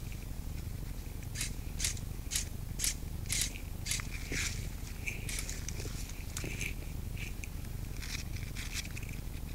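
Footsteps crunching through dry leaf litter and twigs, about two steps a second for a few seconds, then scattered rustles and snaps as the wearer settles, over a steady low rumble.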